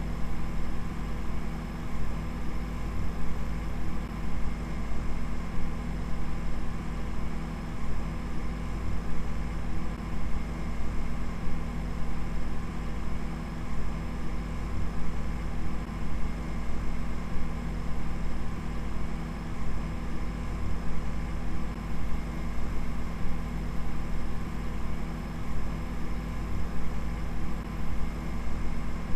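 A steady, low machine-like drone with a layer of hiss, fluttering slightly in loudness.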